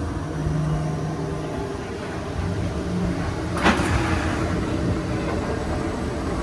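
Roller coaster train rolling on its track with a steady low rumble, with one sharp clack about three and a half seconds in.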